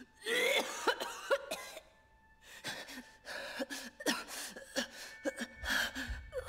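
An elderly woman coughing in rough, broken fits: a cluster of coughs at the start, a short pause, then more coughs to the end.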